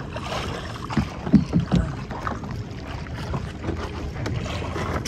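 Small wooden outrigger boat under way on the sea: a steady rush of water and wind over a low steady drone, with a few knocks about a second in.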